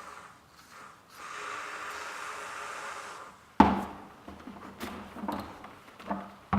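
Air hissing steadily out of a nail hole in a pressurised ball, carrying Fix-A-Flat sealant with it, then cutting off; about three and a half seconds in a loud knock, followed by several lighter knocks as the ball is handled.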